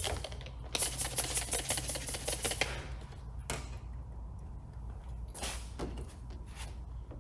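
Trigger spray bottle of soap-and-water slip solution spritzed rapidly many times in a burst of about two seconds, wetting clear paint protection film on a car hood, followed by a few separate single short sounds.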